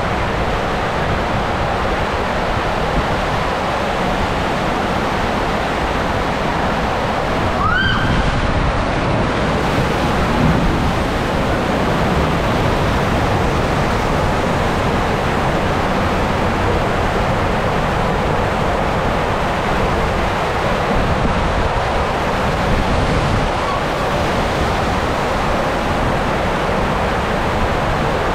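Steady rushing of water and the raft sliding through an enclosed waterslide tube, with wind on the microphone. A brief rising squeal cuts through about 8 seconds in.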